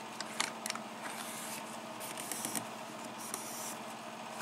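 Small clicks and light scraping of metal on metal as a Yale cylinder lock is handled and straightened in its mount, over a faint steady hum.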